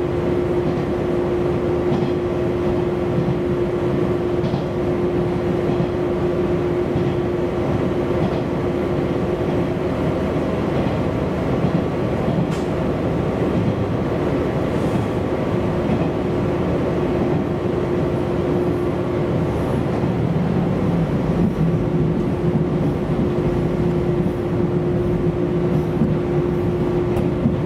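Diesel railcar running at steady speed, heard from inside the passenger cabin: a continuous rumble of engine and wheels on rail, with a steady hum that fades for a few seconds midway and returns.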